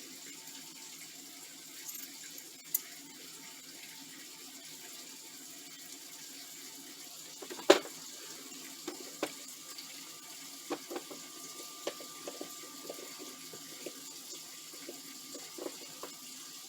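Scattered small clicks and taps of a screwdriver and plastic plug parts as the terminal screws of an extension cord's female end are tightened, one sharper click about eight seconds in, over a steady faint hiss.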